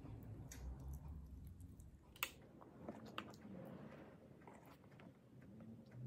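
Soft, close chewing of adobo and fried rice. There is one sharp click about two seconds in, and a few fainter clicks a second later.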